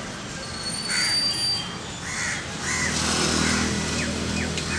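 Crows cawing repeatedly, with a thin high whistle about a second in. A motor vehicle's engine hum joins from about halfway.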